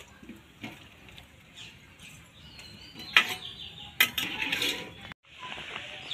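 Iron wok clanking as it is set on a wood-fired clay stove, then two sharp splashes about three and four seconds in as water hits the hot pan, followed by a hiss of steam.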